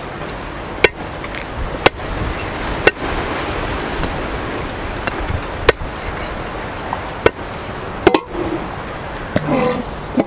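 Heavy chopper knife striking through goat meat and bone into a wooden chopping block: about eight sharp chops, spaced a second or more apart. Steady wind noise runs underneath.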